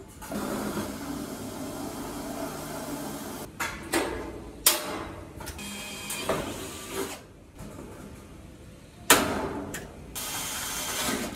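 Cordless drill running in two spells, driving screws through corrugated metal sheeting into a steel frame, with a few sharp metal knocks in between.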